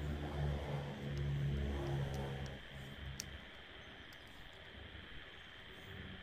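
A low engine rumble, swelling twice over the first two and a half seconds and then fading into a quiet background.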